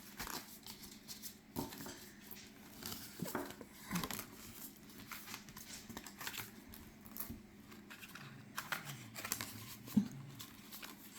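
Faint rustling and light clicks of tarot cards and their packaging being handled, scattered irregularly with a slightly louder click about four seconds in and another near ten seconds.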